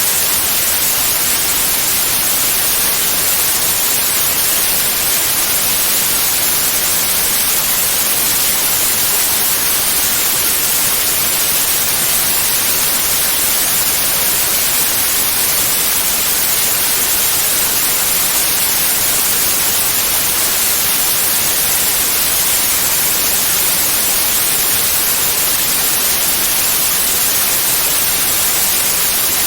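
Steady white noise: an even, hissing rush that does not change, strongest in the treble, with no tones, swells or breaks.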